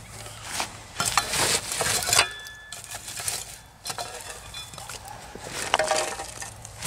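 Metal shovel scraping and clinking through charcoal briquettes and ash, scooping up coals that have turned white. The scraping comes in uneven strokes, heaviest about a second in and again near the end.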